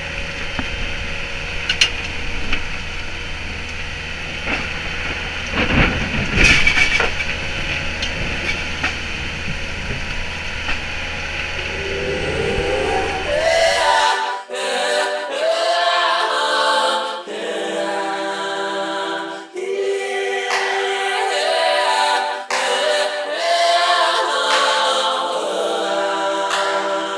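Thunderstorm noise at sea, a steady rush with a few loud cracks of thunder about six seconds in. From about twelve seconds a song with layered singing voices fades in, and the storm sound cuts out about two seconds later, leaving only the song.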